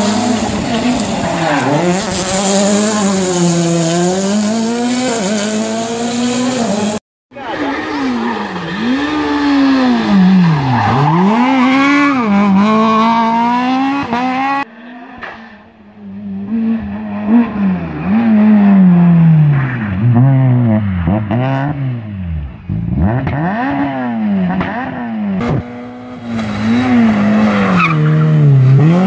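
Rally car engines revving hard through corners, pitch climbing and dropping over and over with gear changes and throttle lifts, across several short clips cut together. Tyres squeal as the cars are driven sideways through the bends.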